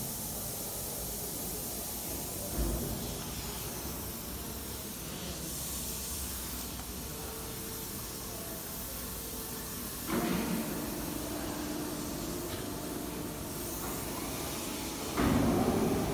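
Factory-floor background: a steady hiss with a faint machine hum, broken by dull knocks about two and a half seconds in, around ten seconds in and near the end.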